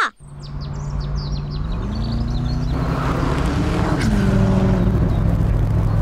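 A sports car's engine running on the road, getting louder; its note rises about two seconds in and drops about four seconds in. Birds chirp faintly in the first few seconds.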